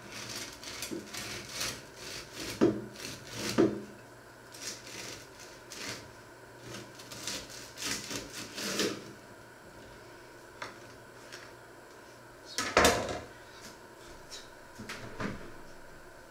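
Knife sawing through a bread roll on a wooden cutting board: a run of short rasping strokes with a couple of knocks of the blade or roll on the board. After a pause comes one louder knock, then a smaller one.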